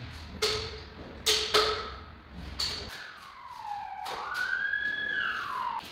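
Sharp knocks on a large thin ceramic wall slab as it is set in place, three loud ones in the first two seconds with a short ring. From about three seconds in comes a whistle-like tone that dips, rises and slides down again.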